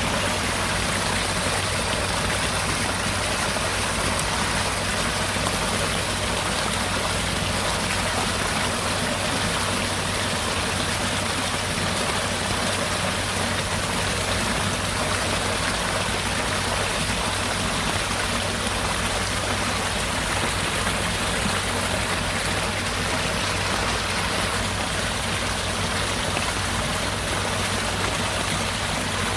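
Rain falling steadily, an even, unbroken hiss of water.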